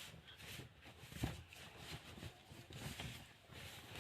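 Faint rustling and soft handling knocks of a cotton t-shirt being pulled on, with one louder knock about a second in.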